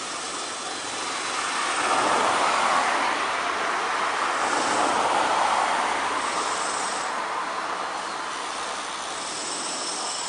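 A road vehicle passing by close to the microphone: its noise swells over a couple of seconds, holds, then slowly fades.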